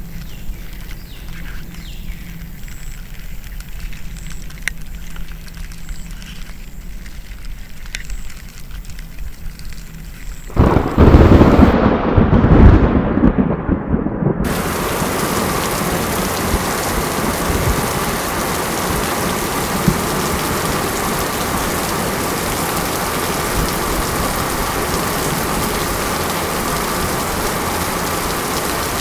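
A quieter stretch with a few faint ticks, then about ten seconds in a sudden loud thunderclap that rumbles for about four seconds, followed by steady, even heavy rain.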